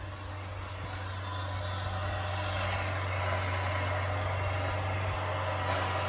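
Bobcat S100 skid-steer loader's diesel engine running with a steady low hum, growing louder as the machine drives closer.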